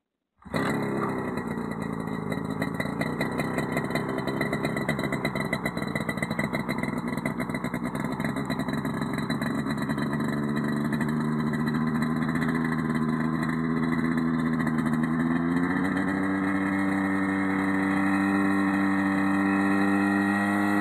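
Rotax 503 two-stroke engine of a Mosquito helicopter running. It cuts in abruptly just after the start, and its pitch steps up about halfway through and again near the end as the rotor spins up.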